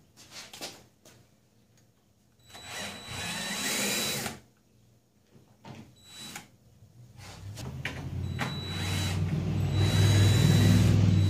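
Cordless drill running at the base of a plywood camper wall, working the screws that hold the wall to the trailer frame. A few light clicks, then a short run of about two seconds, then a longer run that builds from about seven seconds in and is loudest near the end.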